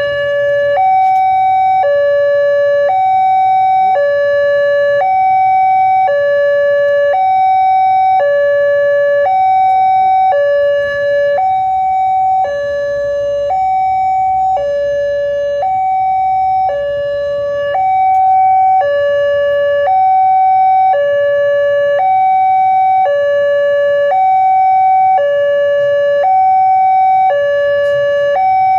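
Indonesian railway level-crossing alarm (the DaOp 2 Bandung type) sounding from its horn speaker. It is an electronic two-tone alarm that alternates evenly between a higher and a lower tone, about one tone a second. This is the high-pitched, fairly slow alarm that warns of an approaching train while the crossing barrier is down.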